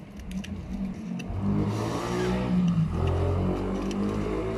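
A motor vehicle engine running steadily, getting louder about a second in. A few light clicks come at the start.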